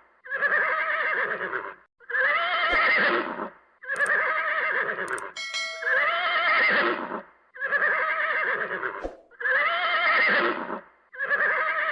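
A horse neighing, the same trembling, wavering whinny repeated about seven times, roughly one every two seconds. A short bell-like ding sounds about halfway through.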